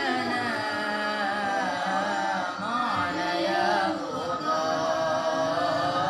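A woman's solo voice singing unaccompanied in a chant-like style: long held notes decorated with wavering melismatic turns.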